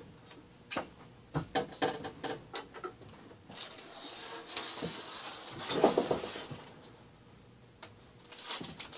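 A few light clicks and knocks of tools being handled, then several seconds of crackling rustle as a cut-off strip of adhesive vinyl wrap is handled, loudest about six seconds in.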